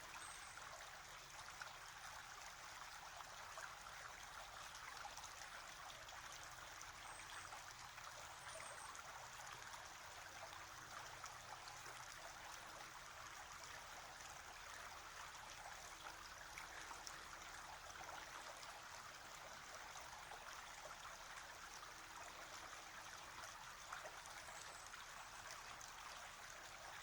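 Faint, steady rush of running water, unchanging throughout.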